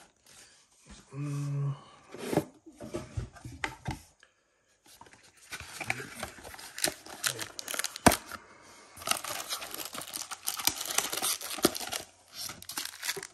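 Cardboard packaging of a Pokémon Crown Zenith Elite Trainer Box being handled as the box is opened: its lid and inner box slide, scrape and rustle, with crinkling and tearing-like noises. The sounds are scattered at first, then dense and continuous from about five seconds in.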